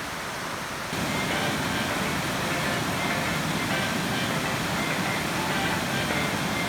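Waterfall: rushing water making a steady, even rush that gets louder about a second in.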